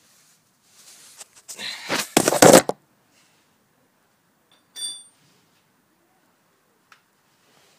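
Metal engine parts and tools being handled and clattering, loudest about two and a half seconds in, followed by a short ringing metal chink and a faint click.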